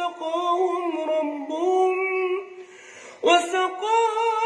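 Man's voice chanting Quran recitation in melodic tajweed style, drawing out long ornamented notes. About three seconds in he pauses briefly for breath, then opens the next phrase.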